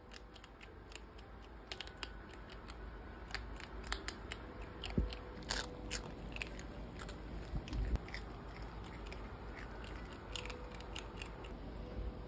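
A ring-tailed lemur and small dogs chewing crunchy food close up: irregular crisp crunches and clicks, a few louder than the rest.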